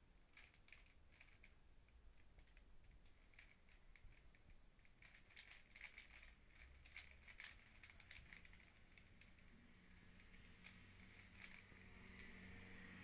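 Faint clicking and clacking of a plastic 3x3 puzzle cube's layers being turned by hand, in quick runs of clicks that are busiest around the middle and again after about ten seconds.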